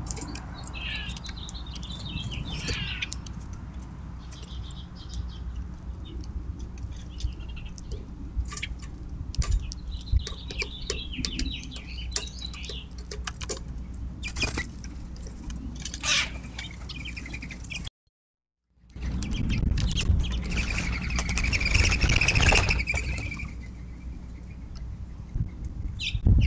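Small songbirds chirping and twittering at a backyard feeder, with scattered sharp taps. About two-thirds of the way in the sound cuts out for a moment, then a louder rushing noise with a steady high tone runs for about four seconds.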